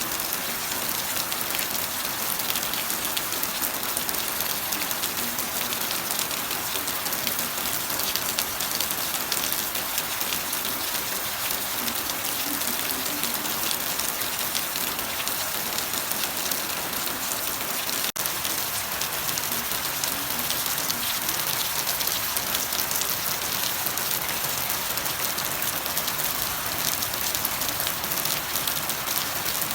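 Steady, heavy rain falling and pattering on surfaces, even throughout, with a momentary dropout a little past halfway.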